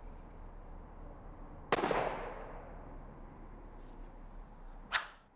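A single .308 Winchester rifle shot from a Sako S20 Hunter about two seconds in: a sharp crack whose echo trails off over more than a second. A brief sharp noise follows near the end.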